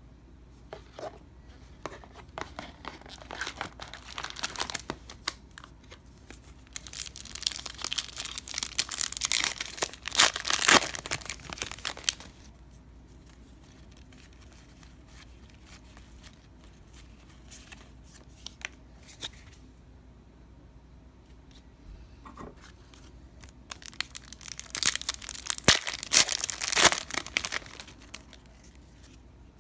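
Foil trading-card pack wrappers being torn open and crinkled, in two long spells with a quiet gap between them.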